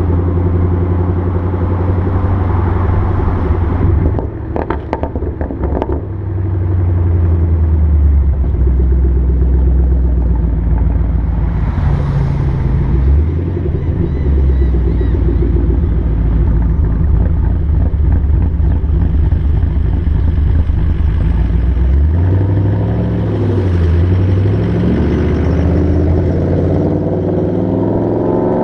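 2014 Mustang GT's 5.0 V8 running through Roush axle-back mufflers with the resonators deleted, under a Track Cal tune. About four seconds in the throttle closes and the exhaust gives a short run of crackles and pops on deceleration. Later the engine note falls and rises a few times as the car is driven on.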